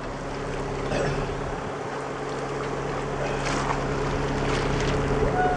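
Sailing yacht under engine power: its engine drones steadily under a rush of wind and water noise.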